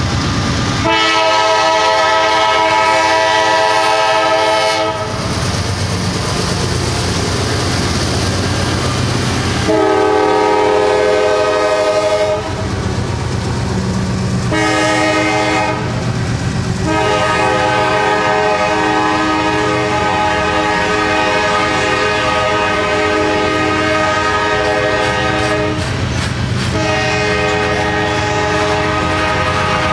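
A freight train's diesel locomotive horn sounding the grade-crossing signal, a chord of several notes: two long blasts, a short one and a long one held about eight seconds, then another long blast near the end. Beneath the horn run the rumble and wheel clatter of covered hopper cars passing close by.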